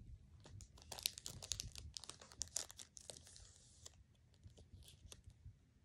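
Faint rustling and crinkling of Pokémon trading cards being handled and shuffled through by hand: a scatter of small crisp rubs and clicks, thickest in the first half.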